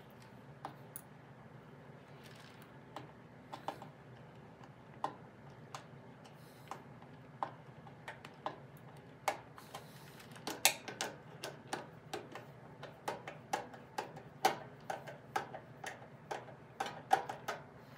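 Hand screwdriver tightening a small clamp around a rubber dust cap on a shaft, giving irregular clicks that come closer together and louder from about ten seconds in.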